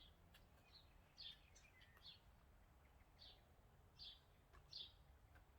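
Faint bird chirps: short high calls repeated at irregular intervals, about one to two a second, over a low steady background rumble.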